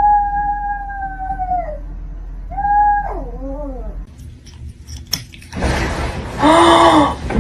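Cat yowling: one long drawn-out call that sags in pitch at its end, a shorter call with a wavering tail about two and a half seconds in, then a louder, rougher, noisier cry near the end.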